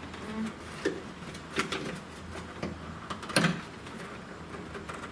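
Clicks and knocks of a plastic license plate light housing being handled and fitted, four separate taps with the sharpest about three and a half seconds in, over a low steady hum.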